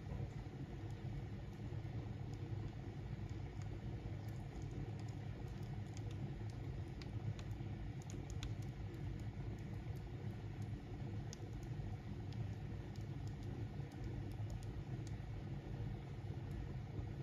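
Small fire burning in a wood-fired baking oven: a fire starter of oil-soaked egg carton in a cardboard tube, flaming between split birch logs, gives scattered faint crackles over a steady low rumble.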